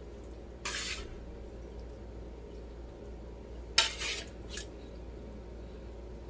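Kitchen tongs scraping and clinking against the pan and plate while serving stir-fried shrimp and broccoli: a short scrape about half a second in, then a sharp clink near four seconds with a brief scrape and a smaller click after it. A low steady hum runs underneath.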